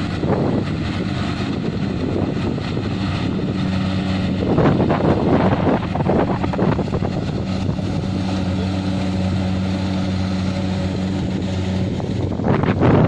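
Diesel engine of Kubota harvesting machinery running steadily with a constant hum, with wind gusting on the microphone a few times.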